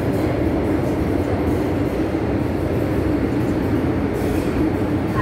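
Cabin noise inside an MTR M-Train (Island Line metro car) running through the tunnel: a steady hum and rush of wheel, motor and air noise at an even level.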